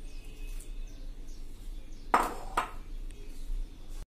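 Two sharp clinks about half a second apart, about two seconds in, as the glass water bowl is set back down on the worktop, over a soft rustle of a hand mixing flour.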